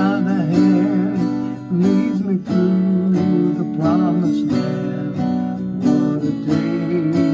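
Acoustic guitar strummed in a steady accompaniment, with a man singing a gospel hymn over it.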